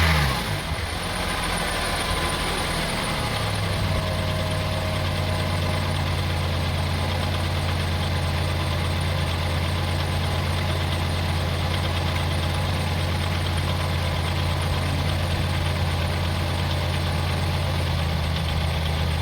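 2002 Honda CR-V's 2.4-litre four-cylinder engine falling back from a brief rev at the start. It settles over the first few seconds into a steady idle.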